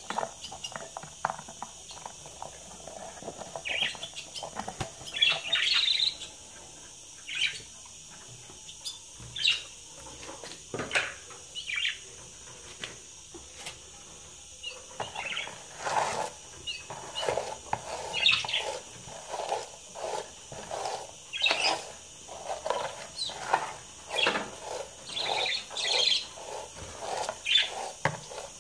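Budgerigars chirping in many short, separate calls that come thicker in the second half, with a few knocks and scrapes from the nest box being brushed out.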